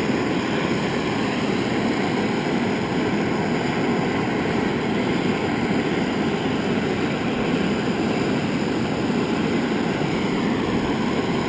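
Metal-melting furnace running, a steady even rushing noise that does not change.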